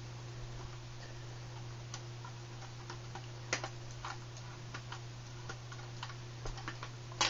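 Small, irregular clicks and ticks of a slot screwdriver turning the short stock screw out of an airsoft Thompson M1A1, over a steady low hum.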